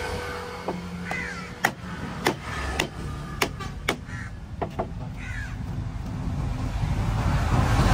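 Machete chopping fish on a wooden block, a series of sharp knocks roughly every half second, with crows cawing twice in the background.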